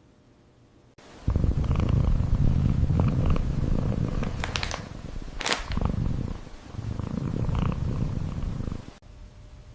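Kitten purring, a steady low rumble that starts about a second in and stops near the end, with a brief sharp click around the middle.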